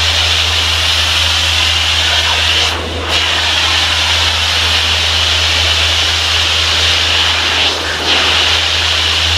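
Pressure washer spraying with a steady, loud hiss over a low hum from its motor. The spray briefly cuts out about three seconds in and again near the end.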